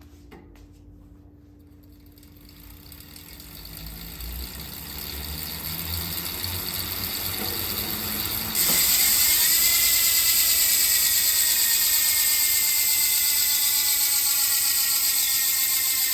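Reynolds ATR-X carbon wheel's freehub: the wheel is spun up and the sound builds slowly, then about eight and a half seconds in it switches suddenly to a loud, high-pitched ratcheting buzz as the wheel coasts, the pitch falling slowly as the wheel slows.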